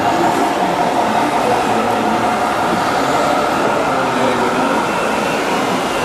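Small electric motors and gearboxes of RC model construction machines whining steadily over continuous background noise.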